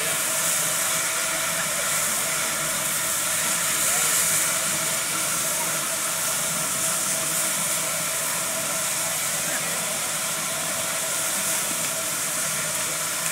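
Steady hiss of steam escaping from a stationary saddle-tank steam locomotive, with faint voices underneath.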